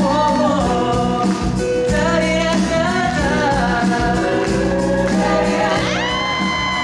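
Live musical-theatre song: a man singing a melody over accompaniment, with other voices joining. Near the end a high voice glides up and holds a long note.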